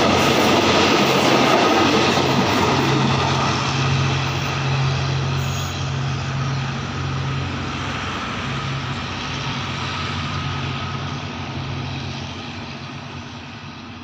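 Passenger train coaches rolling past on the rails, with a steady low hum under the wheel noise. The sound fades steadily as the train draws away.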